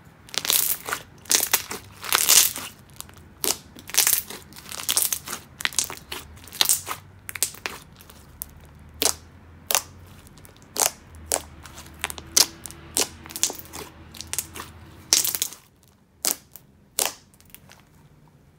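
Thick, glossy slime being pressed and poked by hand, giving a rapid run of sharp bubble pops and crackles. The pops thin out about 15 seconds in, with a couple of last ones after that.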